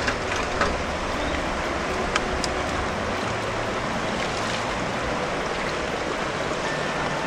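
Steady rush of fast-flowing river water, with a few sharp clicks in the first two or three seconds.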